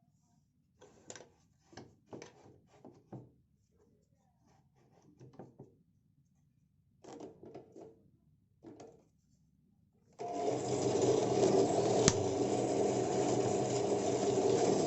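Light knocks and clicks of small parts being handled. About ten seconds in, an electric power tool's motor starts and runs steadily, with one sharp click a couple of seconds later.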